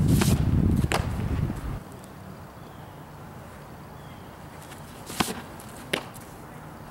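Softball smacking into the catcher's mitt just after a windmill pitch, a sharp pop about a quarter second in, followed by another knock a moment later. A low rumble fades out after about two seconds, and two more sharp clicks come near the end.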